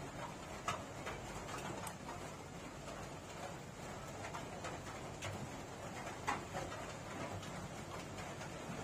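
A person chewing food with wet mouth smacks, with a few sharper clicks, the loudest about a second in and again past six seconds.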